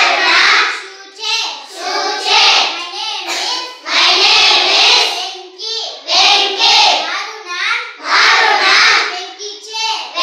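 Class of young children chanting short Gujarati phrases in unison, each repeated after a girl reads it aloud from the blackboard, the call and the chorus alternating about every two seconds.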